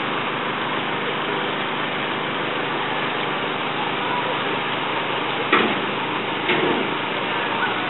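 The engine of a canal work boat running steadily, with two sharp knocks about five and a half and six and a half seconds in.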